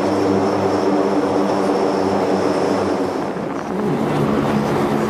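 Aircraft engine drone, a steady hum with several evenly spaced tones and a thin high whine above it, its pitch shifting a little under four seconds in.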